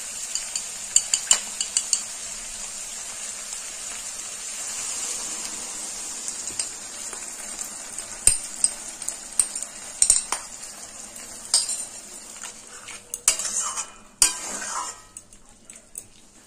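Onions and capsicum sizzling in a wok over a high gas flame as a thick sauce is poured in, with a spoon scraping and clinking against the bowl and a steel spatula knocking on the pan. The sizzle dies down near the end.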